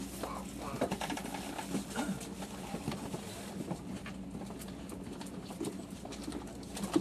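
Inside a loco-hauled sleeper coach running on the line: a steady low hum with irregular light clicks, creaks and rattles from the car body and running gear.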